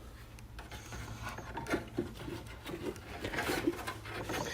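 Soft handling noises in a car's engine bay: scattered light taps, clicks and rubbing of hands and parts, over a steady low hum.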